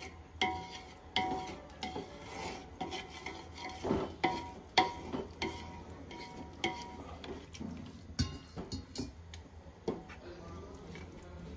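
A spoon stirring and scraping in a metal pan, knocking against its side about once or twice a second with a short metallic ring, as spice powders cook in a little water.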